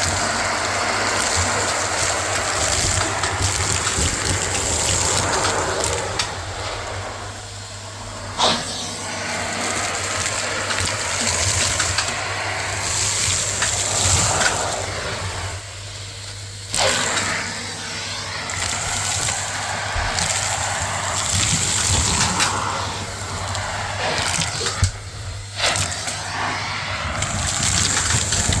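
Vacuum cleaner running on stairs, the motor humming steadily under rushing suction with crackling as debris is sucked up. Three times the suction dips briefly and a sharp knock sounds.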